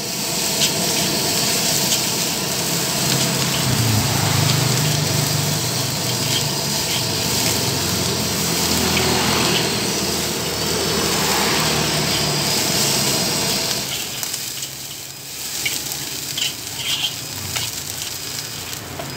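Fried rice sizzling in a hot wok while a metal spatula stirs and scrapes it. The sizzle is a steady hiss that eases off in the last few seconds, with a few light clicks of the spatula against the wok.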